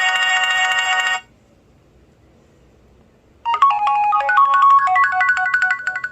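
HTC Desire 530 ringtones: a steady, many-toned electronic ring cuts off about a second in, and after a pause of about two seconds a new tune of short electronic notes starts and rings on with echoes.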